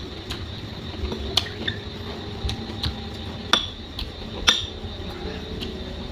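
Metal spoon clinking and scraping against a bowl as food is scooped up, a string of sharp clinks with the loudest three about one and a half, three and a half and four and a half seconds in.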